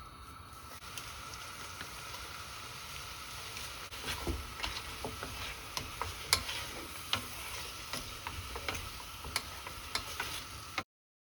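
Food sizzling in a pan or pot while being stirred, with irregular sharp clicks of a utensil against the cookware from about four seconds in; the sound cuts off abruptly near the end.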